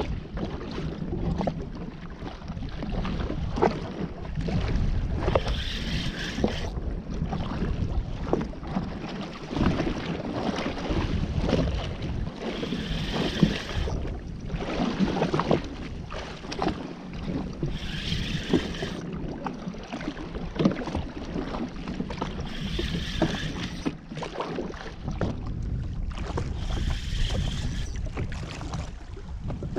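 Wind buffeting the jetski's camera microphone and small waves slapping against its hull as it drifts at sea, with scattered knocks. Short higher-pitched bursts come every few seconds.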